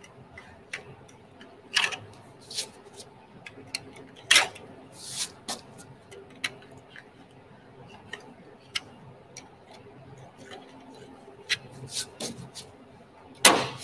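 Hand tools clicking and scraping on the sheet-metal panel of an aircraft engine starter cart as the panel is worked free: scattered short knocks and scrapes, with a louder clatter near the end.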